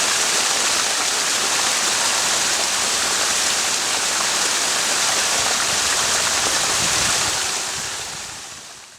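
Clear mountain spring water flowing in a steady rush, fading out near the end.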